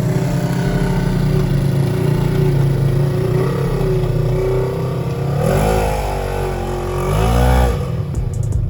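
Side-by-side UTV engine running steadily, then revved twice in the second half, its pitch rising and falling each time.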